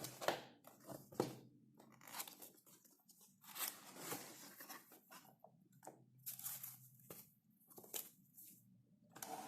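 Keycap set packaging being opened by hand: wrapping rustles and tears in a series of short, irregular bursts.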